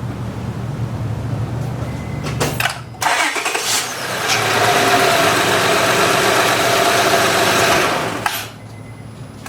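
The 2006 Honda Odyssey's 3.5-litre V6 is cranked and starts about three seconds in, runs loudly for about four seconds and is then switched off. This is the first start after a power steering hose replacement, and the pump draws the freshly filled reservoir down to the bottom.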